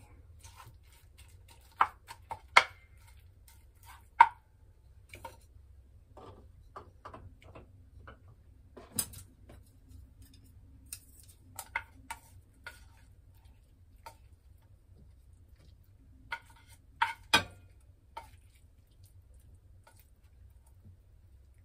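Wooden spatula and chopsticks knocking, clicking and scraping against a frying pan as scrambled egg is broken up and served out. The taps are scattered and sharp, loudest about two and four seconds in and again in a close pair later on, over a low steady hum.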